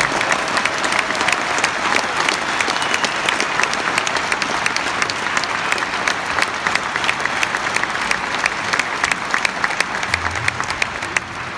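Large arena audience applauding: dense, sustained clapping that begins to die down near the end.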